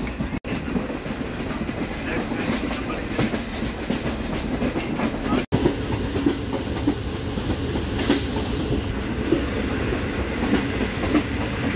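Green Line Express passenger train running at speed, heard through an open window and doorway: a steady rumble of wheels on rails with irregular clickety-clack over the rail joints. The sound drops out for an instant twice, about half a second and five and a half seconds in.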